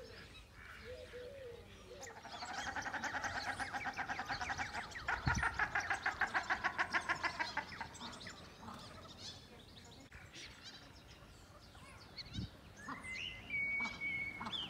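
Waterfowl on a pond calling: a rapid run of cackling calls, about eight a second, lasting several seconds. Scattered short chirps and a brief whistle follow near the end.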